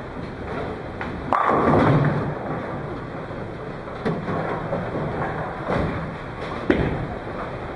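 Bowling alley noise: bowling balls thudding and rolling and pins clattering on nearby lanes. A loud burst of clatter comes just over a second in, and a sharp knock near the end.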